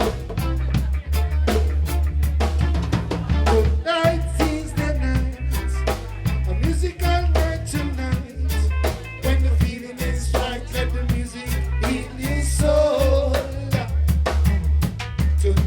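Live band playing an upbeat ska-style number: drum kit hits in a steady rhythm over a heavy, pulsing bass line, with a melody line on top.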